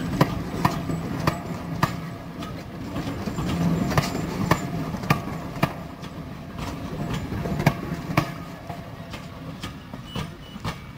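Heritage railway passenger coaches rolling slowly past, their wheels clicking over rail joints in pairs about half a second apart, over a low rumble.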